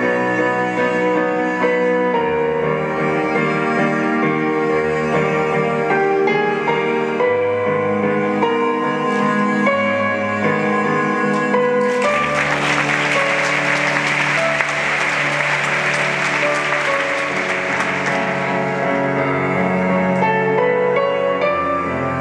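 Instrumental music with long held notes. About halfway through, a theatre audience applauds for roughly six seconds over the music.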